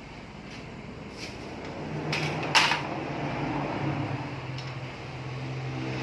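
A few sharp clicks and knocks of hard parts being handled, the loudest about two and a half seconds in, over a low steady hum that sets in about two seconds in.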